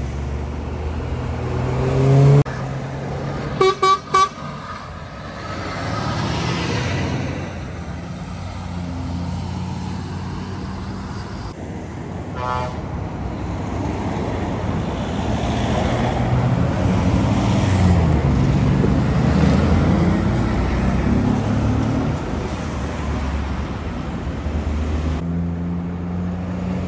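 Heavy truck diesel engines running and pulling away in slow traffic, the rumble swelling in the middle. A horn gives two short toots about four seconds in and a single brief toot around twelve seconds in.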